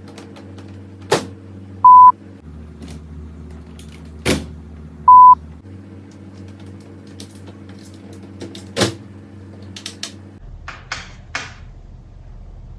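Two short, loud, pure-tone beeps about three seconds apart. Between them come a few sharp clicks and knocks and a brief rustle near the end, over a steady low hum.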